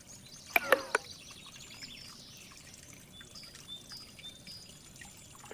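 Water trickling steadily, with small birds chirping repeatedly. Three sharp knocks come close together just under a second in and are the loudest sounds.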